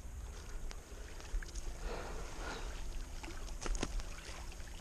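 Faint outdoor background noise with a steady low rumble, and a few light clicks and taps scattered through it.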